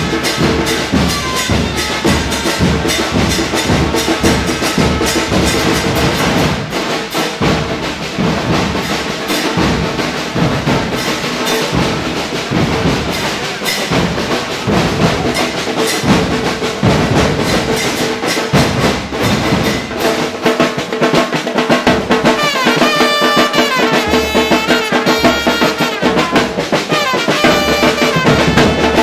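A football supporters' band pounding bass drum and snare drums in a fast, continuous beat, with a trumpet coming in over the drums in the last several seconds.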